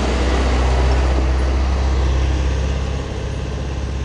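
An old truck's engine running as it drives past close by on a gravel track, with a motorcycle engine running under it.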